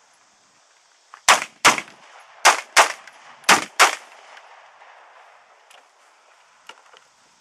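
Heckler & Koch MR556 rifle in 5.56 mm firing six shots, in three quick pairs about a second apart: a double tap on each target.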